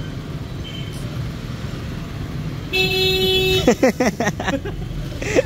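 A vehicle horn honks once, a steady tone lasting just under a second, over continuous street traffic noise. It is followed by about a second of quick, wavering higher sounds.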